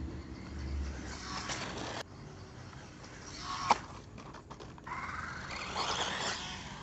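Losi Mini-T 2.0 Brushless RC truck driving on dirt: its electric motor whine rises and falls in pitch as it speeds up and slows down, over the noise of the tyres on the dirt, with one sharp knock a little past halfway.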